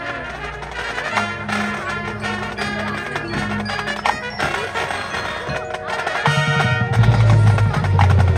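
Marching band show music with busy percussion and pitched mallet-like notes. Deep bass notes come in about six seconds in and the music grows louder.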